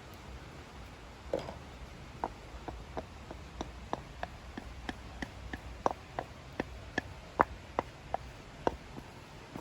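A spoon knocking against a bowl in a steady run of light taps, about three a second, growing louder near the end, as melted chocolate is stirred and scraped into puffed rice.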